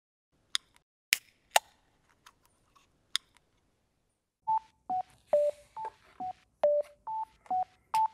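A few sharp electric crackles as a neon sign flickers on, then background music starting about four and a half seconds in: short staccato notes at an even pace, about two a second.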